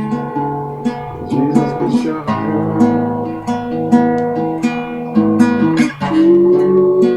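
Acoustic guitar strummed in a steady rhythm, chords changing every second or so; a lower note rises into a held tone about six seconds in.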